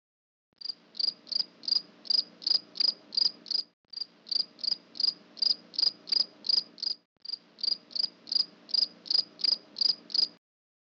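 Cricket-chirp sound effect: evenly spaced high chirps, about three a second, in three stretches of roughly three seconds with brief gaps. It is the stock "crickets" gag for an awkward silence.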